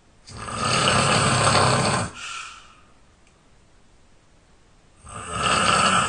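A person snoring loudly in sleep: two long snores about five seconds apart, the first with a softer trailing end, the second still going at the end.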